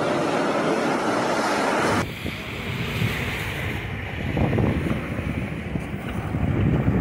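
A steady rushing noise cuts off abruptly about two seconds in. Then wind buffets the phone's microphone, in uneven low gusts, while a V3A-93 articulated tram rolls past.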